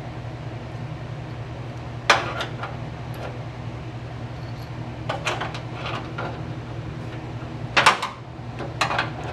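Scattered metal clinks and clanks of a hood-pin stud, nut and wrench against the truck's sheet-metal radiator support as the pin is fitted, the loudest clank near the end. A steady low hum runs underneath.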